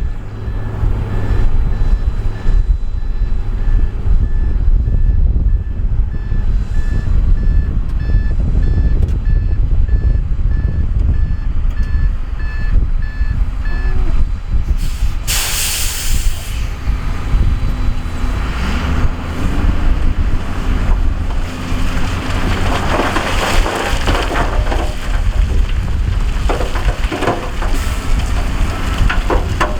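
Heavy diesel dump truck running with its reversing beeper sounding steadily for about thirteen seconds. Then a sharp hiss of air brakes, followed by a long rough rumble and clatter of rock and gravel sliding off the tipping bed.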